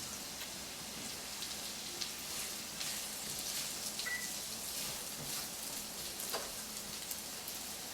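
Chopped carrots, celery, onion and garlic sautéing in sesame oil in a wok: a steady sizzling hiss with scattered light crackles.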